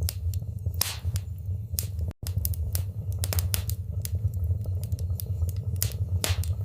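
Wood fire crackling in a fireplace: irregular sharp pops and snaps over a steady low rumble of the flames. The sound cuts out for an instant about two seconds in.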